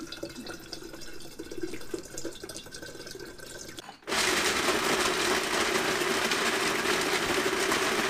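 Liquid poured from a bottle into a plastic blender jar, splashing and trickling; about four seconds in, a blender motor starts and runs loudly and steadily.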